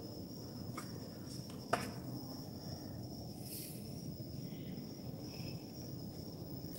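Crickets chirping steadily in a high, thin, continuous trill, with one sharp click about two seconds in.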